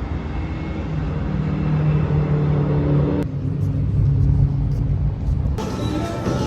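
Steady low rumble of a vehicle in motion, with a low hum in it.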